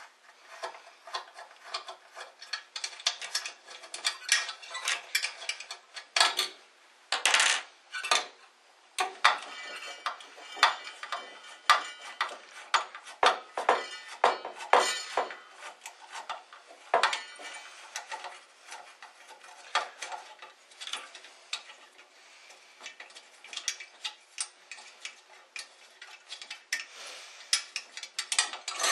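A screwdriver backs out the long screws holding a metal halide ballast in a fixture housing. Dense, irregular metal clicking and scraping goes on throughout, with several louder knocks of metal on metal.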